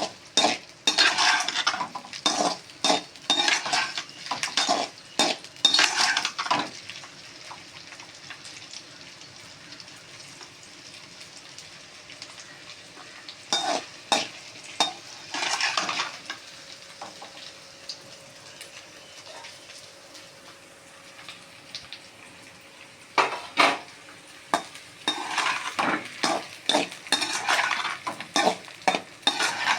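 Sliced okra frying in sesame oil in a kadai, a metal spatula scraping and stirring it in three spells of quick strokes, with a low sizzle running between them.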